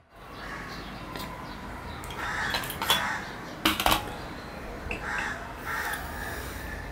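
Stainless steel dishes clinking as a small steel bowl is stacked onto a steel plate: two sharp metallic clinks, about three and four seconds in.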